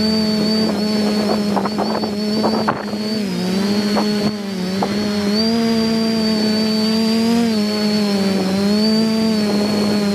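Quadcopter's electric motors and propellers humming steadily, recorded by the onboard camera, with a high whine above the hum. The pitch dips about three seconds in, rises about five and a half seconds in and drops again near eight seconds as the throttle changes. A few brief clicks sound in the first half.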